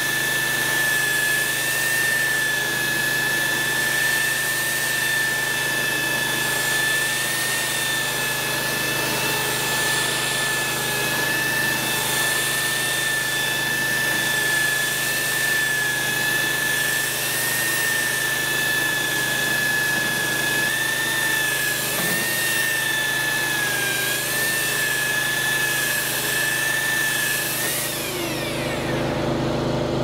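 Ryobi belt sander running on a timber board with finer sandpaper: a steady high motor whine over the hiss of the belt on the wood. Near the end it is switched off and the whine falls away as it winds down.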